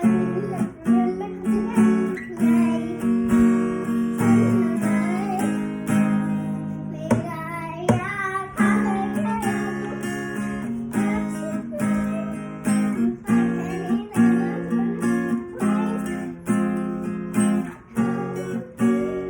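Acoustic guitar strummed in a steady rhythm of chords, with a voice singing a wavering melody over it.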